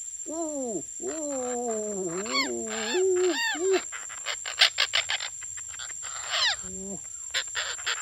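Swooping, warbling calls in a low voice-like pitch, rising and falling several times in the first few seconds and again near the end, as a man calls to tame green parakeets. Between them come quick runs of sharp clicks and harsh squawks from the parakeets. A thin, steady high whine runs underneath.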